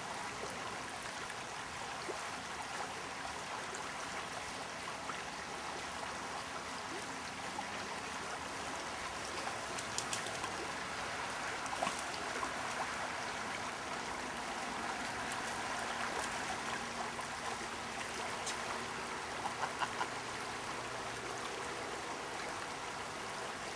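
Shallow river flowing and rippling steadily around a wading angler, with a few brief faint clicks now and then.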